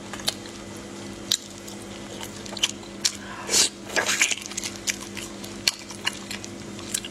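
Close-up wet eating sounds: squelchy clicks as marinated shellfish are lifted out of the sauce with a gloved hand, then a long sucking bite about three seconds in, followed by more wet chewing clicks. A faint steady hum lies underneath.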